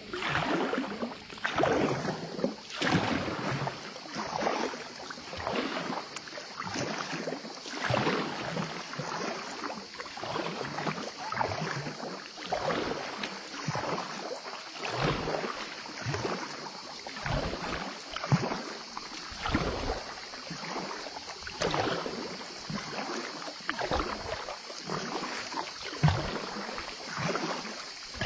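Kayak paddle strokes through calm water: a swish and splash about every one and a half seconds, in a steady rhythm, over a steady high hiss.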